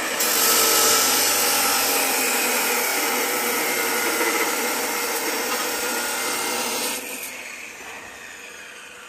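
Power tool grinding steel, most like an angle grinder: a steady, bright, hissing run that stops abruptly about seven seconds in.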